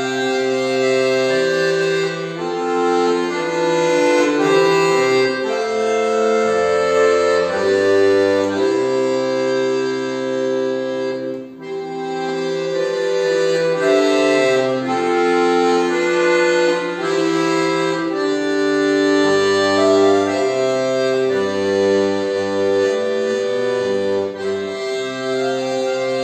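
Solo chromatic button accordion (bayan) playing a slow melody of long held notes over a moving bass line, with a brief break between phrases about eleven seconds in.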